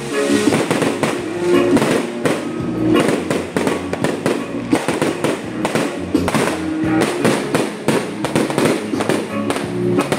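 Fireworks and firecrackers going off in rapid, irregular cracks and bangs throughout, over music playing.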